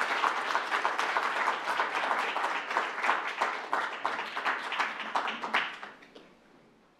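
Audience applauding, many hands clapping, the applause thinning out and stopping about six seconds in.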